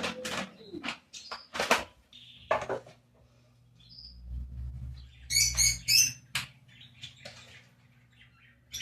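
Birds chirping in a short burst of high calls about halfway through, with several sharp knocks and clatters in the first few seconds and a low steady hum underneath.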